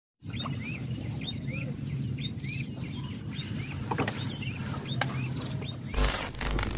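A bird repeating a short curved chirp about twice a second over a steady low hum, with a couple of sharp clicks. About six seconds in, a burst of buzzing digital static from a glitch transition effect takes over.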